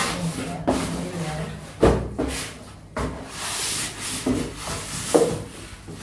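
Cardboard box and styrofoam packing being handled: scraping and rustling, broken by several knocks, the sharpest about two seconds in and again about five seconds in.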